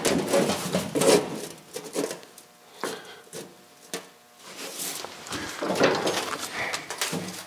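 A sheet of 18-gauge steel being slid and shifted into a manual sheet-metal brake, scraping and rattling against the brake's bed. The handling noise is loudest in the first second and again around six seconds in, with quieter stretches between.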